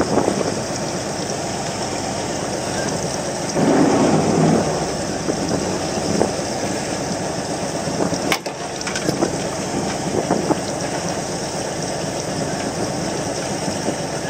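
Wind buffeting the microphone on a small fishing boat, a steady rushing noise with a louder gust about four seconds in. A single sharp click sounds a little past eight seconds.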